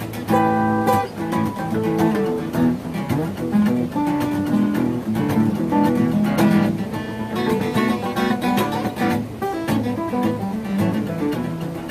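Acoustic guitar playing a blues jam, with quickly picked single notes and strummed chords.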